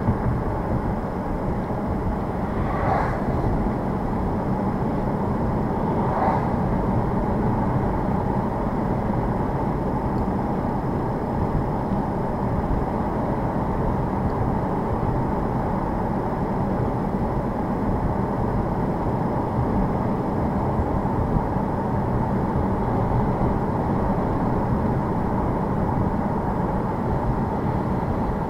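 Steady road and tyre noise of a car driving on a snow-covered road, heard from inside the cabin, with two brief louder swishes about three and six seconds in.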